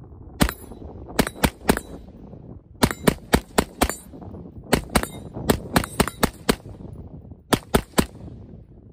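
AR-15 rifle firing semi-automatic in quick strings of up to five shots, about nineteen shots in all, with hits ringing on a steel target.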